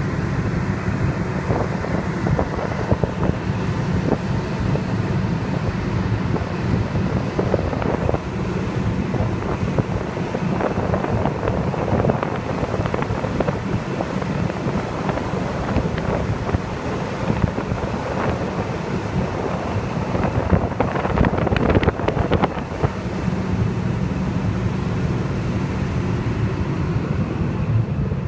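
Wind buffeting the microphone over a small boat's engine running steadily and water rushing past the hull. It stays at an even level throughout, with a rougher, splashier stretch a little past two-thirds of the way through.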